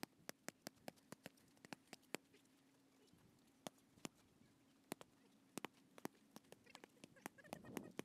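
Boxing gloves smacking against focus mitts in quick, irregular strikes, a few tenths of a second apart, with short pauses between combinations.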